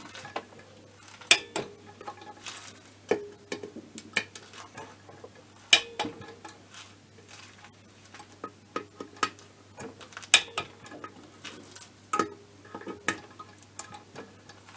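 Torque wrench ratcheting in short runs of clicks as the aluminium crankcase bolts of a scooter engine are tightened to 13 N·m, with three sharper, louder clicks about a second, six seconds and ten seconds in.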